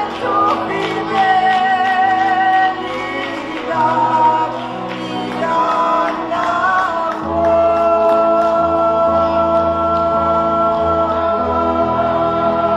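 Live church worship music: singing over a band with keyboard and bass. From about seven seconds in, it settles on one long held chord.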